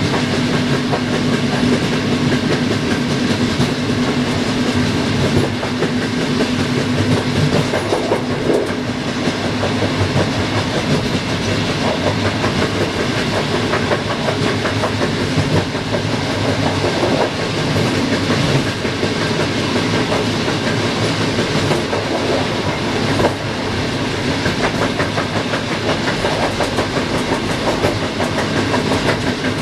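Passenger train running steadily at speed, heard from inside its rear cab: a continuous rumble of wheels on the rails with rapid clicking over rail joints and a steady hum underneath.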